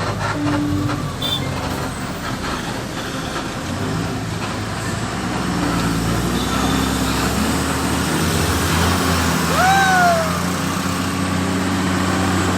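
Truck engine running steadily with road noise while driving. About ten seconds in, a short pitched tone rises and then falls.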